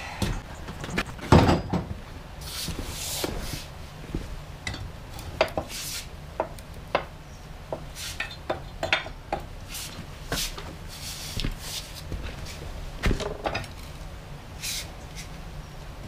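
Steel chisel and hand tools worked against a seized pin in a backhoe's hydraulic foot: irregular metal clinks and knocks with a few short scraping sounds between them, a louder knock about a second in and another about three seconds before the end.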